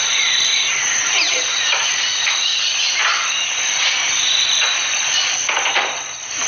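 Steady high-pitched buzzing of a tropical insect chorus, with a few faint short squeaks over it.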